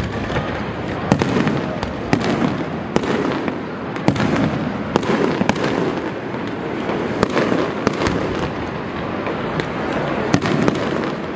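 Fireworks going off: an irregular run of sharp bangs and pops from shells launching and bursting, about one a second, over a continuous background rumble.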